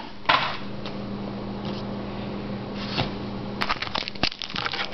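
Baseball cards being handled and pack wrappers crinkling: a soft rustle near the start, then a run of quick crackles from about three and a half seconds in.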